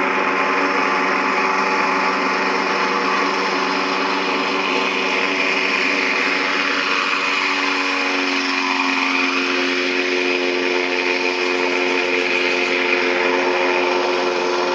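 A home-built propeller aircart's engine and propeller running steadily, heard through a small playback speaker with no deep bass. The pitch drops about halfway through and then holds steady.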